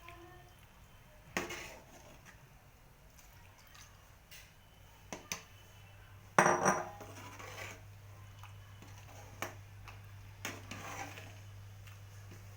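A utensil stirring potato paste and milk in a metal pan, with scattered knocks and scrapes against the pan; the loudest clatter comes about six seconds in. A low steady hum starts at that moment.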